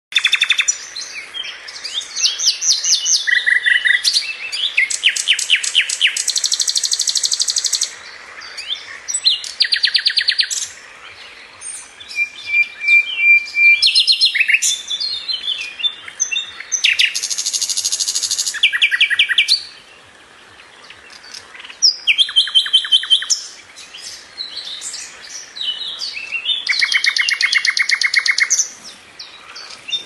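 A nightingale singing: phrases of fast repeated notes and rattling trills, each a second or a few seconds long, with short pauses between them.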